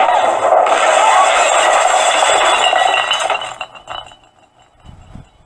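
Loud, dense noise from a horror film's soundtrack, dying away after about three and a half seconds.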